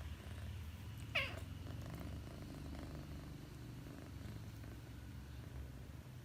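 Sleeping domestic cat snoring: a steady low rumble. About a second in, a short high squeak falls sharply in pitch, the loudest sound here.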